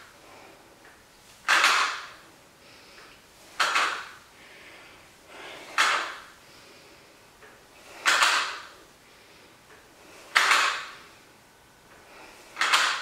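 A woman's forceful breaths out, six of them about two seconds apart, each a short hiss with the effort of lifting the dumbbells.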